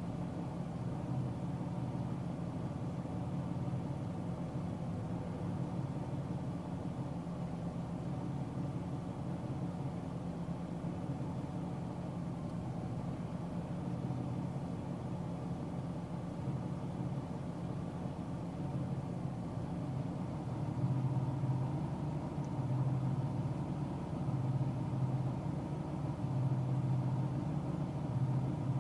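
Steady rumble of a car driving at highway speed, tyre and engine noise heard from inside the cabin, growing a little louder about two-thirds of the way through.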